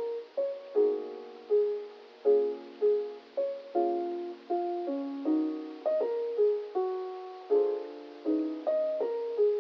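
Background music: a gentle keyboard melody, one note struck about every three-quarters of a second and left to fade.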